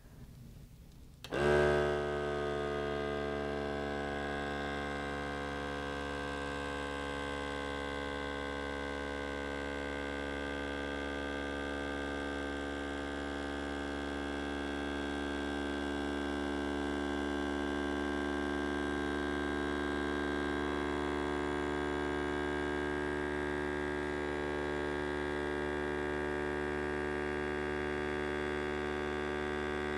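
Electric kitchen vacuum pump starting up about a second in with a brief louder surge, then running as a steady hum as it pumps the air out of the canister.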